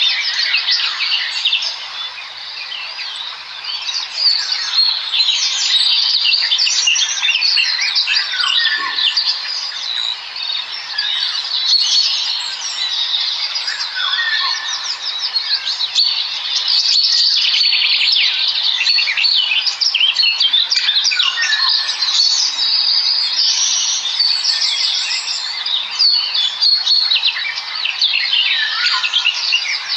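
A flock of small birds chittering: many short, high chirps overlapping without a break.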